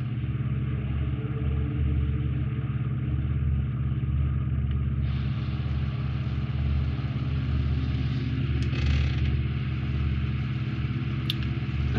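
A steady low hum, like a motor or electrical hum, unchanging throughout, with a light click near the end.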